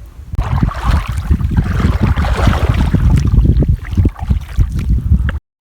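Wind buffeting the microphone with a low, uneven rumble, over a rushing hiss of water, out on the river. The sound cuts off abruptly near the end.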